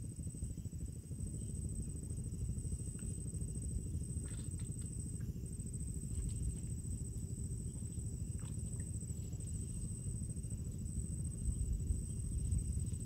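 Outdoor wind rumbling on the microphone, with a steady high-pitched whine above it and a few faint clicks about four seconds in.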